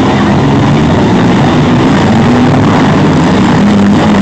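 Engines of several demolition derby mini-vans, trucks and SUVs running and revving at once, loud and steady, their pitches wandering up and down.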